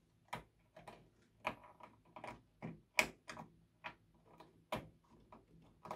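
Light plastic clicks and taps of SATA cables and their connectors being handled and pushed into a motherboard SATA port: a run of irregular short clicks, the sharpest about three seconds in.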